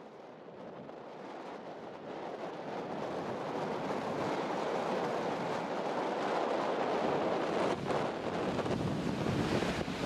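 Wind blowing on the microphone together with surf washing onto a sand beach: an even noise that grows steadily louder and flutters with the gusts.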